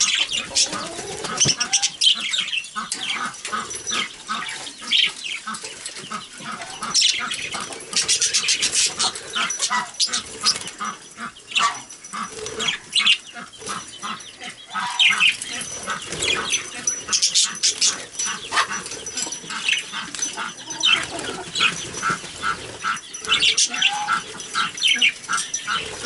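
Flock of budgerigars chattering and chirping, many birds calling at once in quick high warbling chirps without a break.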